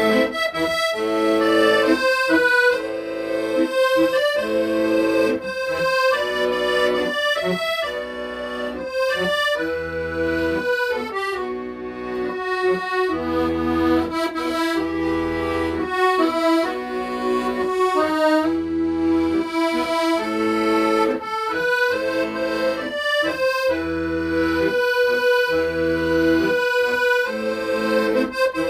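Accordion playing a slow melody in long held notes over a steady, evenly pulsing bass and chord accompaniment.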